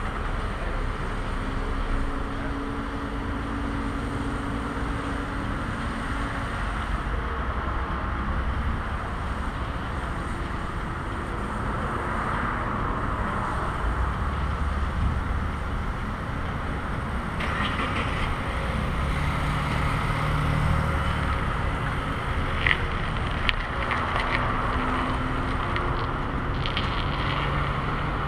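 Steady road traffic: cars and trucks passing with engine rumble and tyre noise, a couple of sharp clicks about two-thirds of the way in, and a car engine drawing closer near the end.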